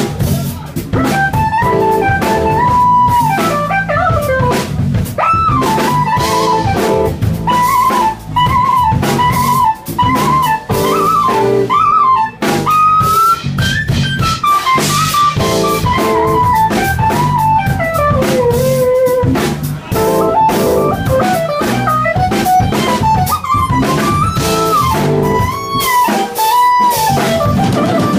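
Instrumental music: a keyboard synthesizer plays a lead melody with sliding, bent notes over a steady drum beat and bass line.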